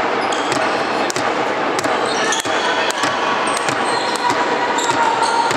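Handball being played on an indoor court: the ball bounces on the wooden floor in sharp slaps and sneakers squeak, under a steady babble of voices calling out, echoing in the hall.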